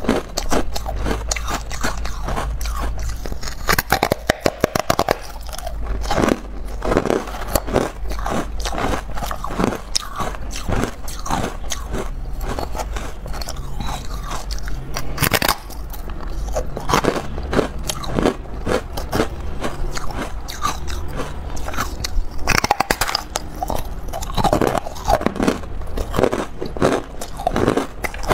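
Carbonated ice being bitten and chewed close to the microphone: repeated sharp crunching bites into a porous, frosted ice block, each followed by crackling chews.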